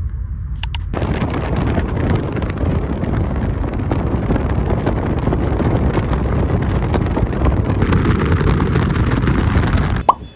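Loud, steady rushing noise of wind buffeting the microphone. It starts abruptly about a second in and cuts off suddenly near the end.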